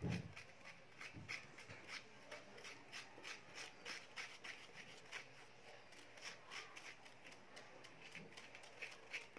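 Metal spoons scraping soft banana flesh out of the peels over a stainless steel bowl: quick, repeated faint scrapes. A low thump sounds at the very start.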